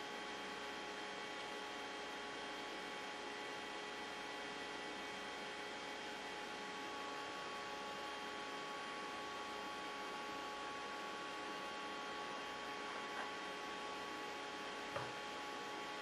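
Steady electrical hum with several constant tones over a light hiss, unchanging throughout; two faint clicks near the end.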